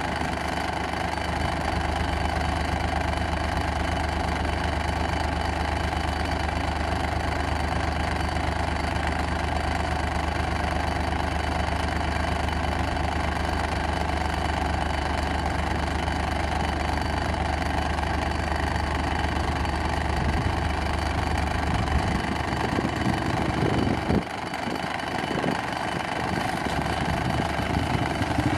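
A vehicle engine idling steadily. About 22 seconds in its note becomes uneven, and about 24 seconds in the steady running drops away.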